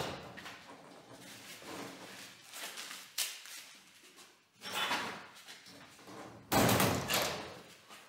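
Doors of a sheet-steel workshop cabinet being opened and shut: several separate metallic knocks, with the loudest, a short bang with a rattle, about six and a half seconds in.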